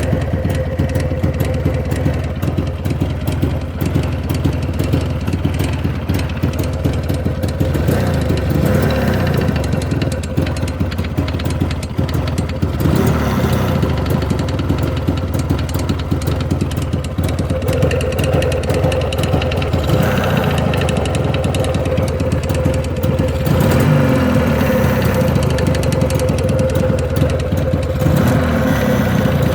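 Jawa 638 two-stroke twin motorcycle engine running with a knock, the reason for the recording. It ticks over and is revved briefly about five times, each time rising in pitch and dropping back.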